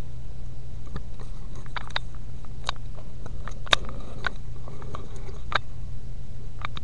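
Raindrops tapping in irregular sharp ticks, a dozen or so scattered through the stretch, over a steady low hum.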